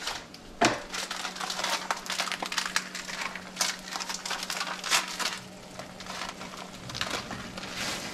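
A paper packet of dry rice mix crinkling and rustling as it is handled, and the mix poured into a pot of boiling water. A sharp knock comes about a second in, after which a steady low hum runs on under the rustling.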